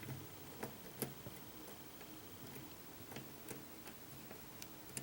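Faint, irregular light clicks of a hook pick lifting and setting pin stacks in a challenge lock that is held in a false set, about eight ticks over the few seconds.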